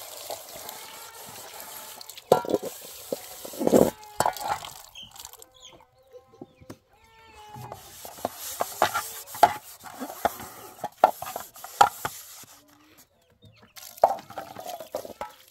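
Tap water running and splashing as tomatoes and a metal pot are washed by hand, with clatter and knocks of the bowl and pan; the water stops for a couple of seconds about halfway through.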